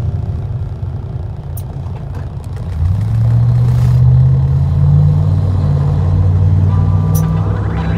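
Vehicle engine and road rumble heard from inside the cab while driving in traffic. About three seconds in the engine gets louder and its pitch climbs slightly as the vehicle accelerates, then holds steady.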